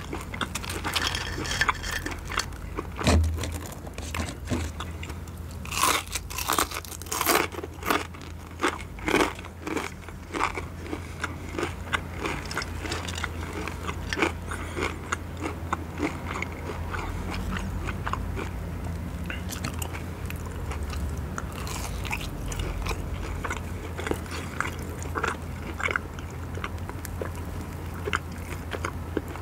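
Close-miked crunching bites and chewing of crispy fried chicken and fried cassava sticks. The crackly crunches are densest about six to ten seconds in and give way to softer chewing later, over a low steady hum.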